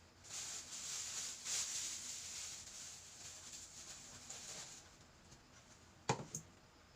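Rubbing or wiping noise with a fluctuating hiss for about four and a half seconds, then a sharp knock followed by a lighter click.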